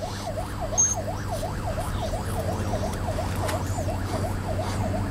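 Ambulance siren in a fast yelp, rising and falling about three or four times a second, over the steady low drone of the vehicle, heard from inside the ambulance.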